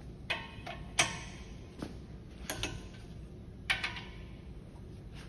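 Click-type torque wrench on the front hub bolts, giving several short, sharp metallic clicks with a brief ring, spaced unevenly. Each click signals that a bolt has reached its set torque of 73 foot-pounds.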